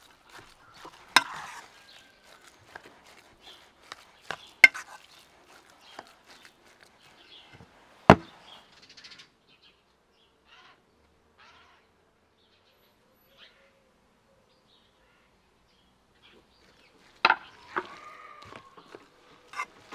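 A metal spoon mixing minced meat and onion filling in an enamel bowl, with three sharp clinks against the bowl in the first eight seconds. A long quiet stretch follows, then a few more knocks near the end.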